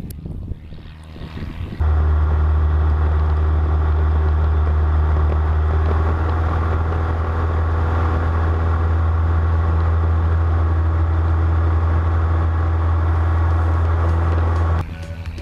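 Steady, loud aircraft engine drone with a deep hum, starting abruptly about two seconds in and cutting off abruptly near the end.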